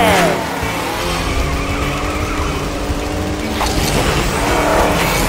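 Cartoon vehicle sound effects of an engine running and tyres skidding, over background music.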